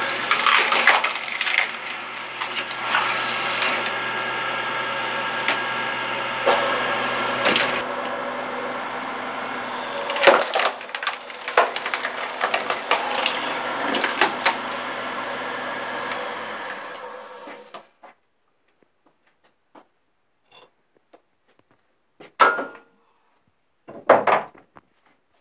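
Homemade threaded-cone wood splitter driven by an electric motor: the motor hums steadily while the spinning cone bores into the logs, with repeated cracking and splintering as the wood splits. The hum dies away about seventeen seconds in, leaving a few short knocks near the end.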